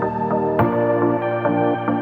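Background music in a calm, ambient style: sustained chords with notes moving underneath, and a new chord striking about half a second in.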